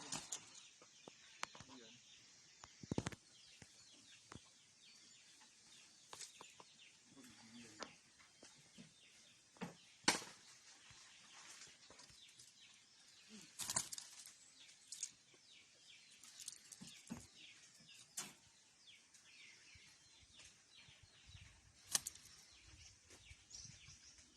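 Small bird chirping and twittering in quick, high, repeated notes, with a few sharp knocks or taps scattered through, the loudest about ten seconds in.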